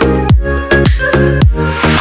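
Electronic dance music with a steady, punchy kick drum about twice a second over sustained synth chords, and a hissing sweep building up near the end.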